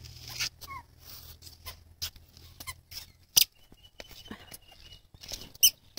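Footsteps of a toddler and an adult in sandals going down concrete steps: a string of light, irregular clicks.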